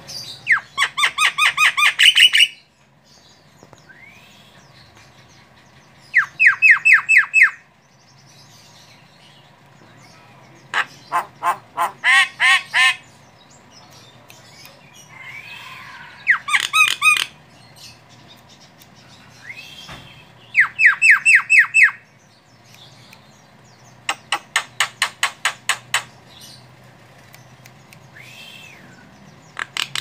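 Female Javan myna (jalak kebo) calling vigorously. About every four to five seconds it gives a one-to-two-second burst of rapid, harsh repeated notes, several per second, and between bursts come single faint up-and-down whistles.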